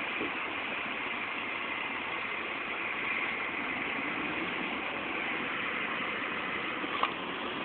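Fire engine's diesel engine idling with a steady hum, heard through a window. A single sharp click about seven seconds in.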